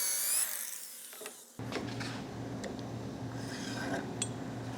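An electric drill's high motor whine, wavering in pitch, dies away in the first half second as the hole is finished. After that a steady low hum runs, with a few light clicks and knocks.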